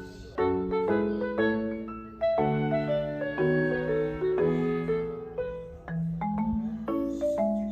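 Light background music of struck, quickly fading pitched notes, a new chord about every half second to second.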